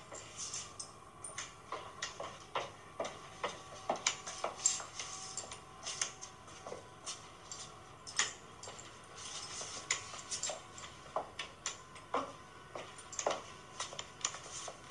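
Stiletto heels clicking on a hard floor as someone walks: sharp, irregular steps, one or two a second.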